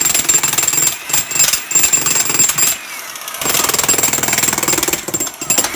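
Electric Makita demolition hammer running, its chisel bit pounding rapidly into the mortar joints of a brick hearth to crack them loose, with a steady high whine over the hammering. The pounding eases briefly about three seconds in, then picks up again.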